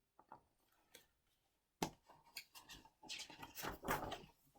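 Faint handling of a picture book: a sharp click about two seconds in, then a couple of seconds of soft paper rustling as a page is turned.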